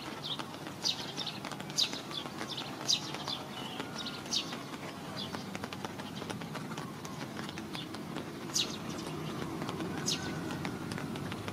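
Birds chirping: many short, high calls, each sliding down in pitch, scattered irregularly over a steady low rushing background of wet forest.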